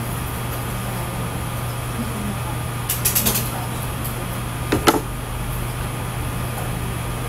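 Steady low room hum throughout. A pen draws curved lines on paper over it, with a short run of quick scratchy strokes about three seconds in and one brief sharp sound near five seconds.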